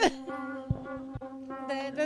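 Background music with a steady held drone tone, and two soft low thumps about a second in.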